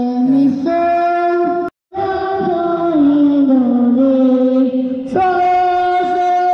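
A young boy singing into a microphone, his voice amplified through a portable party speaker, holding long notes that step up and down in pitch. The sound drops out completely for a moment just under two seconds in.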